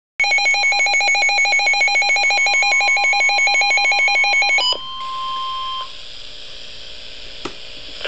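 Midland WR-100 weather radio sounding its warning alert: a loud, rapidly pulsing electronic beep that stops abruptly after about four and a half seconds. It gives way to the broadcast's steady single-pitched NOAA Weather Radio warning tone, which lasts about a second and then ends, leaving faint hiss and a single click near the end.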